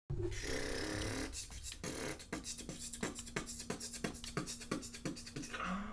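Short intro beat playing quietly: a held sound at first, then sharp percussive clicks about four a second over a steady low note.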